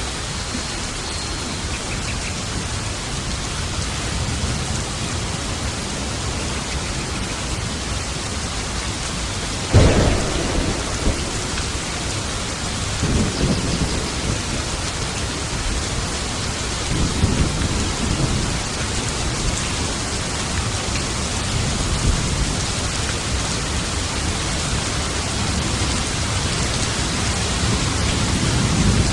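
Steady heavy rain with a thunderstorm: a sharp thunderclap about ten seconds in, followed by rolling low rumbles of thunder several times afterwards.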